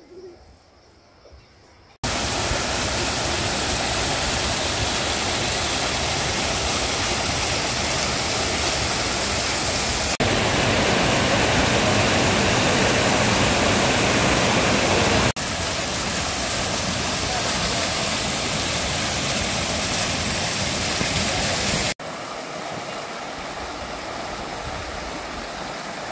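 Rushing water of a mountain stream pouring out beneath traditional stone water mills (ghatta): a loud, steady rush that starts abruptly about two seconds in and changes level at a few sudden cuts. In the last few seconds it is a softer rush.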